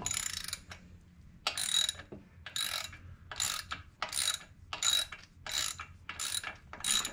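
Socket ratchet wrench with a 3/4-inch socket clicking in short runs, about one stroke every 0.7 seconds, as it backs out a bolt that has just broken loose.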